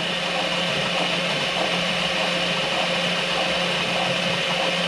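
A 12 V children's ride-on car's stock 12,000 rpm electric drive motors and gearboxes running steadily at full forward, spinning the raised, unloaded rear wheels at about 100 RPM; a steady electric whine with a constant pitch.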